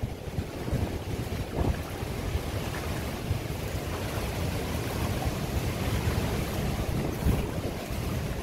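Strong storm wind from a cyclone blowing and buffeting the microphone with a steady low rumble, swelling in a few stronger gusts.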